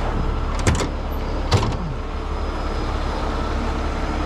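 A heavy truck's diesel engine running steadily, with two sharp knocks about a second apart early on.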